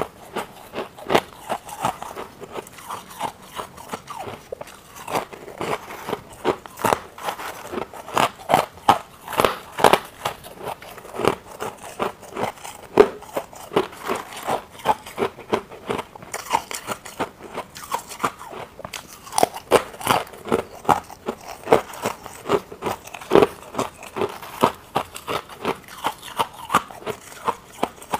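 Close-miked crunching and chewing of brittle white frost ice, an irregular run of sharp crunches about two or three a second as the ice is bitten and ground between the teeth.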